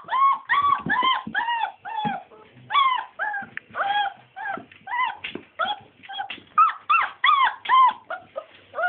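Four-week-old Scottish Deerhound puppies yelping and whining in a rapid, unbroken string of short high cries, about three a second, each rising and then falling in pitch.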